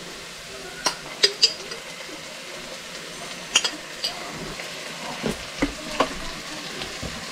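A pan on the stove frying with a steady sizzle, while a spoon scoops garlic paste and spice from glass jars into it. The spoon gives several sharp clinks and knocks against the jars and pan, a cluster about a second in and more through the middle.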